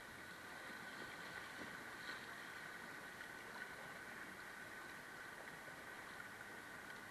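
Steady, faint rush of river water running through a shallow rocky rapid around a kayak, with a couple of faint taps.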